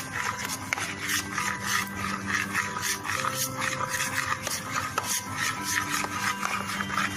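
Black glitter slime being stirred in a container as the borax activator makes it clump: an irregular run of wet scraping and clicking sounds.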